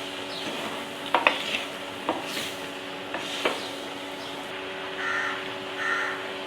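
A spoon stirring and mixing cooked rice in a clay pot, scraping with a few sharp knocks against the pot in the first half. Two short calls sound in the background near the end.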